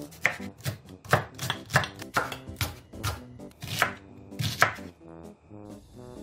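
Kitchen knife chopping vegetables (enoki mushrooms, then onion) on a wooden cutting board: about ten sharp knife strokes, roughly two a second, stopping about five seconds in. Soft background music runs underneath.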